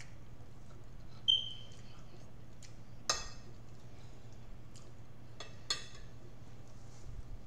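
Forks clicking and clinking against plates as food is cut and eaten: a few sharp clicks, with a brief ringing ping about a second in, over a low steady hum.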